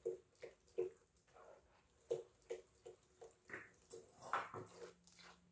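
A hand squelching through a wet, grainy butter-and-water mixture in a clay bowl, in short repeated strokes about two or three a second.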